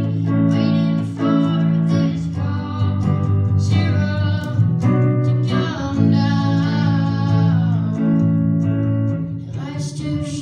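A singer performing a song to guitar accompaniment, with sustained guitar chords under the vocal melody.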